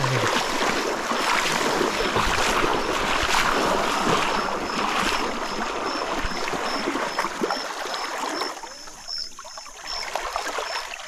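Splashing and sloshing of shallow river water, as when wading and handling a fishing net. It is heavier for about the first eight seconds and lighter after. A short high chirp repeats about three times a second throughout.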